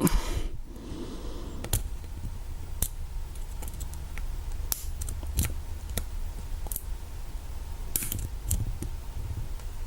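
Lock pick and tension wrench working the pin stack of a Master Lock 6835 padlock's Pro Series core: scattered small metallic clicks and scrapes as pins are set one by one.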